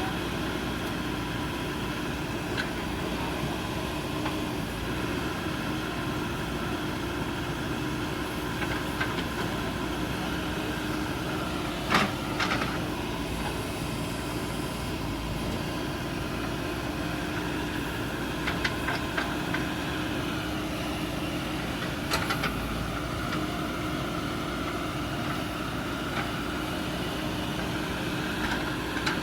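JCB backhoe loader's diesel engine running steadily, with a few sharp knocks: the loudest about twelve seconds in, and a short cluster a little later.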